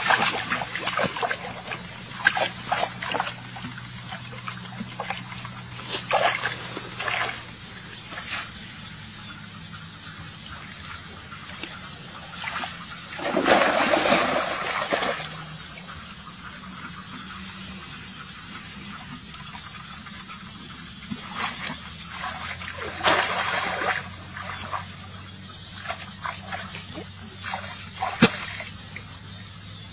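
Shallow water splashing in irregular bursts as someone wades through it and pushes a woven bamboo basket fish trap down into it. The longest, loudest splashing comes about halfway through, and there is a sharp click near the end.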